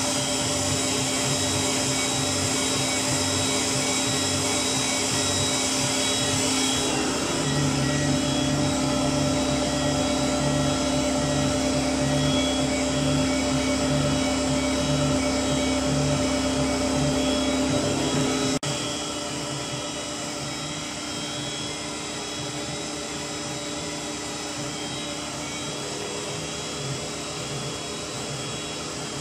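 Tormach CNC mill running under flood coolant, its spindle giving a steady whine with a low pulsing as the cutter works through metal parts. About two-thirds of the way in the sound drops suddenly in level and the low pulsing fades out.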